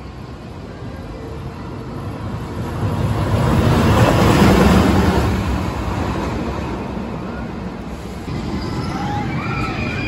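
Empty test train on the Loch Ness Monster, an Arrow steel looping roller coaster, rumbling along its track. The rumble swells to its loudest about four seconds in, then eases off as the train runs away through the trees. Near the end a few short, high gliding squeals rise over the rumble.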